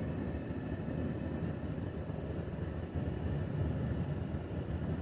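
Steady low rumble of a truck idling, heard from inside the cab.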